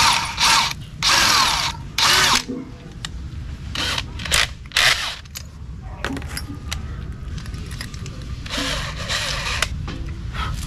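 Electric hand drill run in short bursts, a 7 mm bit boring a hole: several quick bursts at the start, three short ones about four seconds in, and a longer one near the end.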